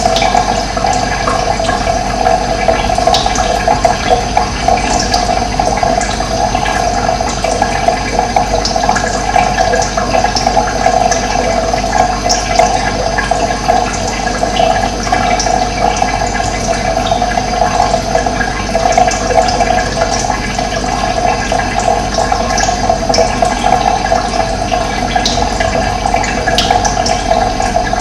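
Running water rushing steadily, with occasional short high bird chirps over it.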